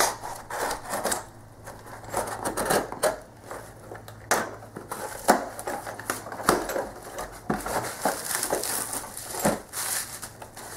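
A mailed package being opened by hand: irregular rustling, crinkling and sharp clicks of the packaging being cut, torn and pulled apart.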